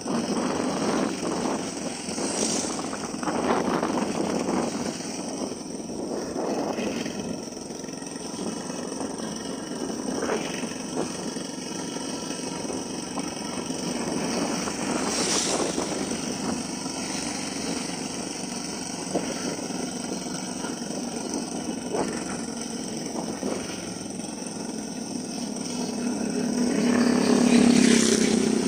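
Motorcycle engine running while riding, with wind and road noise. It grows louder near the end.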